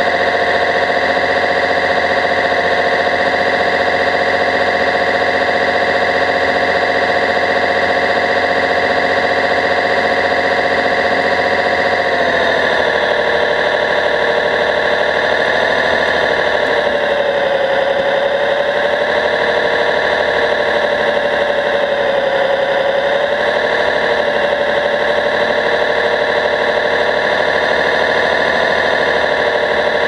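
RC model Liebherr 741 bulldozer driving, heard close from a camera on the model: a steady mechanical whine made of several pitches over a noisy rattle. The pitch changes about 12 seconds in and wavers up and down after that as the model changes speed.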